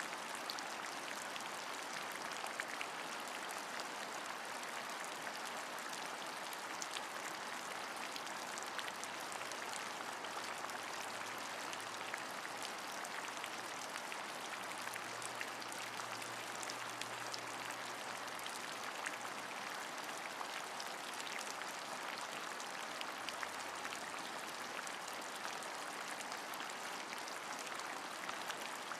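Steady rain falling, an even hiss with many small individual drops ticking through it.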